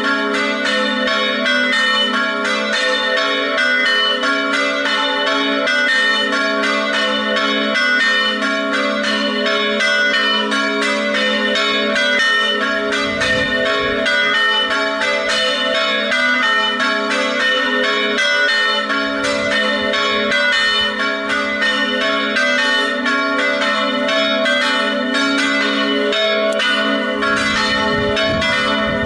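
Three church bells, tuned A3, B3 and C#4, ringing together in a steady, rapid stream of strokes for the festive noon peal.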